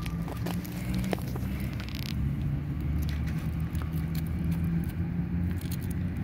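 A low, steady engine hum, with faint scattered clicks of loose gravel.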